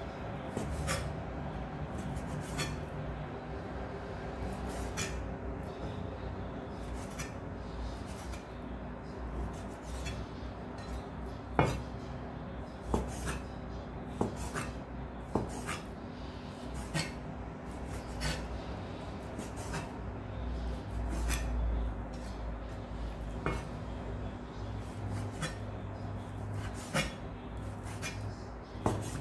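Cleaver slicing raw pork on a wooden chopping board: the blade knocks on the board about every one to two seconds, the sharpest knock a little before the middle, over a steady low hum.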